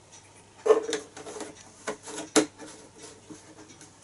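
Handling noises on a Mastrand toy traction engine: a few sharp knocks and clicks of its small metal parts, the loudest under a second in and two more about two seconds in, with light rubbing between.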